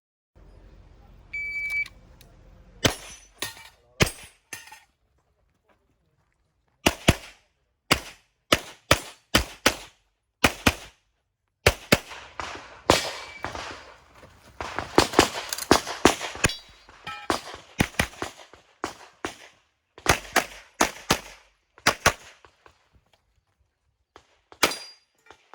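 A short electronic beep from a shot timer, then a handgun fired many times, mostly in quick pairs, with short pauses between groups of shots.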